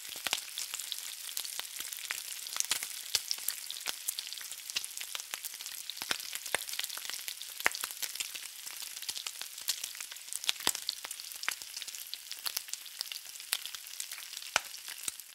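Bacon frying in a pan: a steady sizzle full of sharp crackles and pops from the spitting fat.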